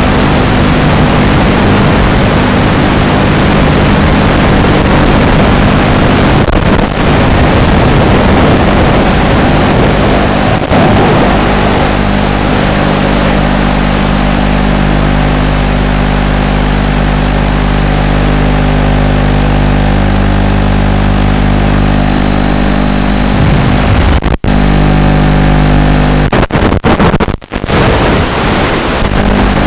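Loud, steady hiss with a low buzz of several unchanging tones, from the audio channel of an analog FPV video link recorded in the goggles. It cuts out briefly a few times near the end.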